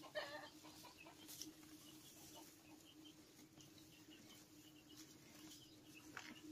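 Near silence: a faint steady hum with scattered faint bird calls, the clearest a short call right at the start.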